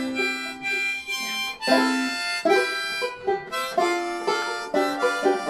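Harmonica playing a melodic intro in held notes, with plucked banjo and acoustic guitar lightly behind it.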